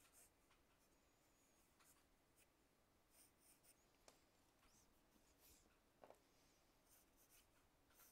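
Faint scratching of a pencil sketching on paper, in short runs of strokes, with a light tick about six seconds in.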